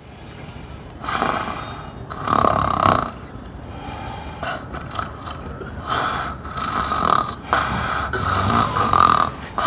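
A person snoring loudly, a string of separate snores coming a little less than once a second.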